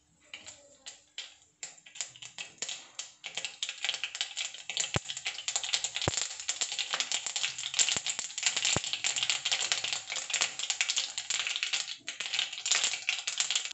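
Mustard seeds popping and spluttering in hot oil in a nonstick kadai. This is the tempering stage, and it shows the oil is hot enough. A few scattered crackles at first thicken about four seconds in into a dense, continuous crackle, with a few sharper pops among them.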